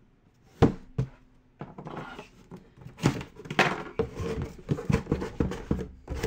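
A cardboard box being handled on a tabletop. Two sharp knocks come about half a second and a second in, then the box's cardboard lid scrapes and rustles, with small knocks, as it is slid loose and lifted off.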